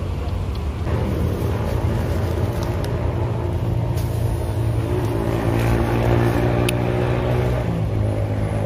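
Engine running steadily with a low hum, its pitch shifting slightly partway through. A few sharp clicks come from the camera being handled.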